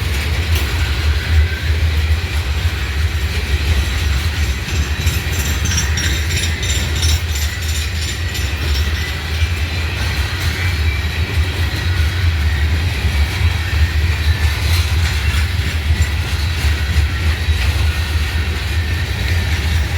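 Freight train cars rolling past on the track: a steady low rumble of steel wheels on rail, with a stretch of rapid clicking and a faint squeal midway.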